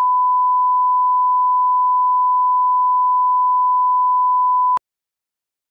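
1 kHz line-up test tone played over colour bars: a single steady pure beep at one constant pitch, which cuts off suddenly about a second before the end, leaving dead silence.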